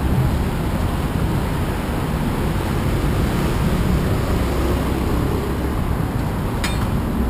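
Steady city street noise: a continuous low traffic rumble, with a faint click near the end.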